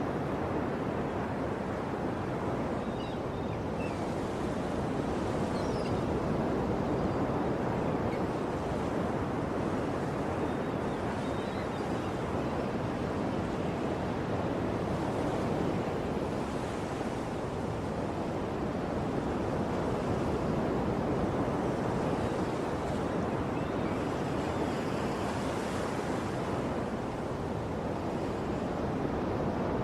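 Sea surf: waves washing in a continuous steady rush, swelling gently every ten seconds or so.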